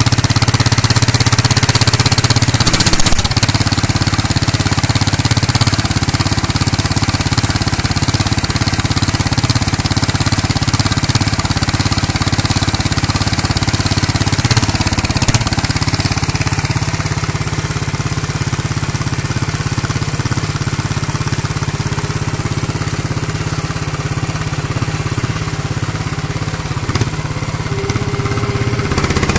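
Handmade radio-controlled hydraulic model excavator running: a steady machine drone with a high, even whine above it.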